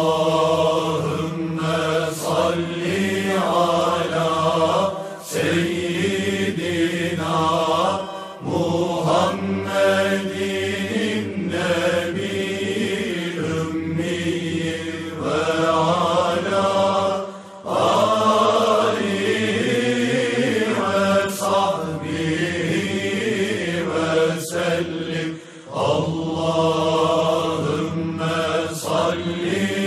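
A man chanting a slow, melodic Islamic recitation in long drawn-out phrases, with brief pauses for breath between them.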